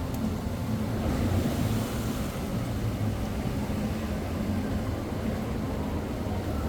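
A boat's motor running steadily, with water rushing along the hull.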